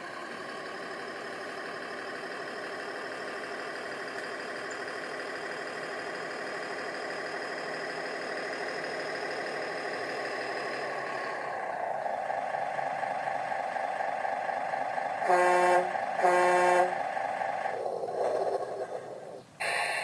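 An RC bulldozer's sound unit plays a steady diesel-engine sound through its small speaker, and the note shifts a little past halfway as the dozer pushes. About three-quarters of the way through it gives two short horn toots a second apart.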